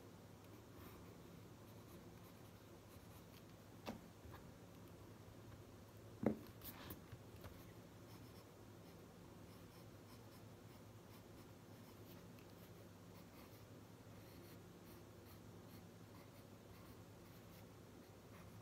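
Faint scratching of a pen writing on lined notebook paper. A light tap comes about four seconds in and a sharper knock a little over two seconds later.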